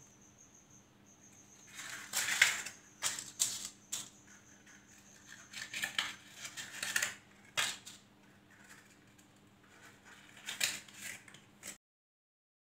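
Paper cupcake liners crinkling and clicking in short irregular bursts as they are pulled apart and pressed into the cups of a metal muffin tin. The sound cuts off abruptly near the end.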